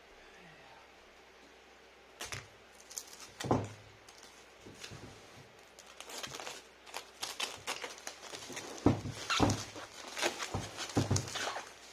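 Hands packing a keyboard order: scattered knocks and thunks with short bursts of rustling packaging, starting about two seconds in and growing busier in the second half.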